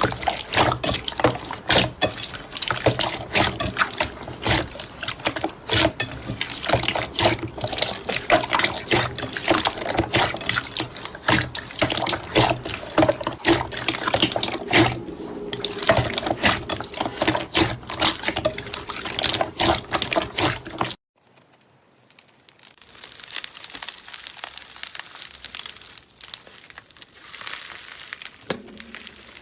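Slime being squished and poked by hand: a dense run of wet clicks and pops. About three quarters of the way through it cuts off abruptly and gives way to a much quieter, softer handling sound.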